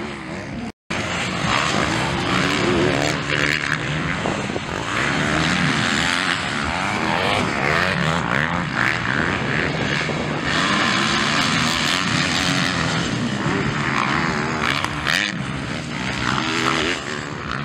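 Several motocross dirt bikes' engines revving up and down as they race around the track, the pitch rising and falling with each throttle change. The sound cuts out completely for a moment just under a second in.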